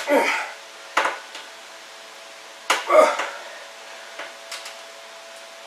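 A man's strained exhale or grunt on each of two dumbbell presses, about three seconds apart, with sharp clinks from the iron plates of the 125-pound dumbbells.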